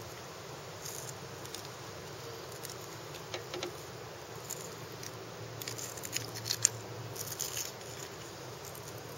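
Metal fishing pliers clicking and scraping in short, irregular bursts while working at a deeply swallowed hook in a bass, with the sharpest click about two thirds of the way through, over a steady background hiss.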